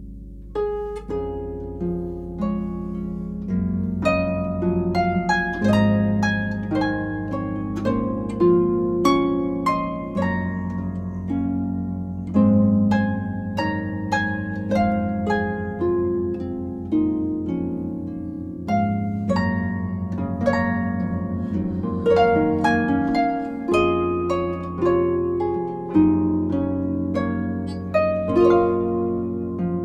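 Background music: a steady run of plucked notes, each dying away, over held low bass tones.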